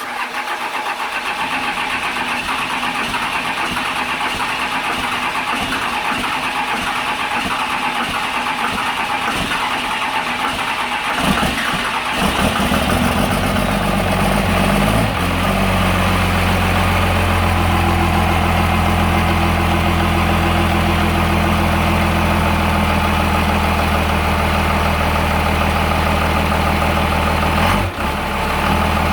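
1994 Cummins 12-valve 5.9 L inline-six diesel, compound-turbocharged and straight-piped, on its first start-up: it cranks on the starter for about eleven seconds, catches, and settles into a steady low idle.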